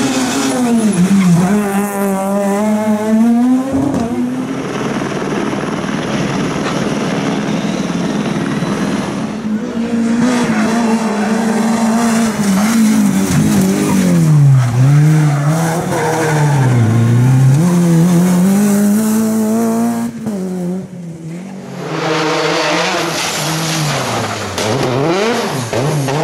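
Rally cars at racing speed, one after another, engines revving hard, the pitch dropping sharply and climbing again as each car brakes, shifts and accelerates through the corners.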